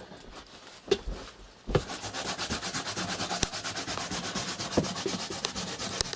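Carrot being grated on a hand grater: fast, even rasping strokes, about eight a second, starting a little under two seconds in after a couple of thumps.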